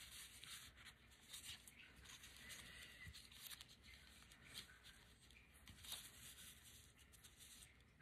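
Near silence, with faint rustling and light ticks of paper and fabric being handled and pressed down on a desk.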